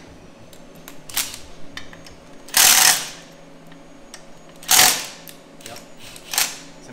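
Cordless impact driver hammering on a frame mount bolt in short bursts: two runs of about half a second each, with a quick blip before and after. The bolt is being loosened and run back down.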